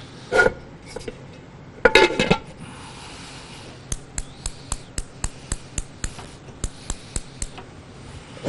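Kitchen dishes and utensils being handled: a few knocks of pots or bowls, then a run of sharp, evenly spaced clicks, about four a second.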